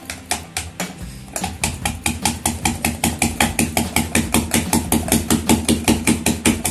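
A muddler pounding lime wedges, mint, sugar and crushed ice in a tumbler: a few slower strokes, then from about a second and a half in, fast steady pounding at about six strokes a second. This presses the juice and oil out of the lime and its skin.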